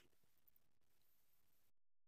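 Near silence: a faint hiss that cuts to dead digital silence near the end.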